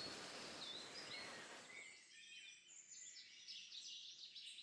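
Faint birdsong in woodland: short high chirps repeating every second or so, over a soft rustling hiss that stops about two seconds in.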